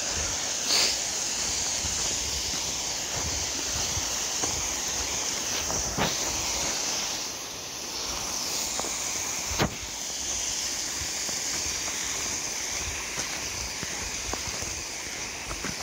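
Mountain stream rushing steadily below a snowy path, with a few sharp knocks partway through.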